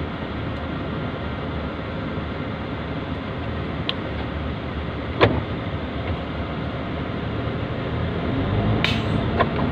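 Steady engine and road noise inside a truck cab moving slowly, with one sharp click about five seconds in and a short rattle and a couple of knocks near the end as it grows a little louder.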